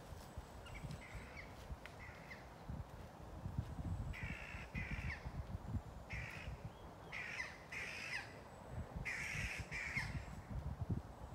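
Crows cawing: a few faint caws, then a run of louder harsh caws from about four seconds in, many of them in quick pairs.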